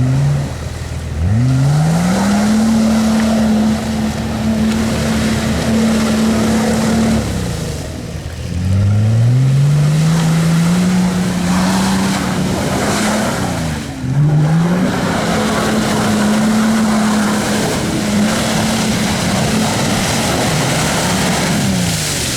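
Off-road 4x4's engine revved hard three times. Each time it is held at high revs for several seconds and then drops back, over a rough spattering noise, as the stuck vehicle strains to drive forward.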